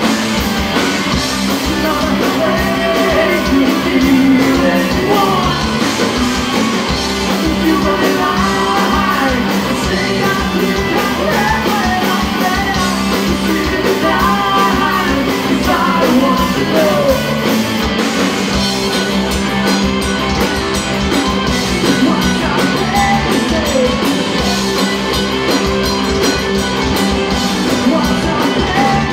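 A live rock band playing loud, with drums hitting steadily under a dense wall of amplified instruments.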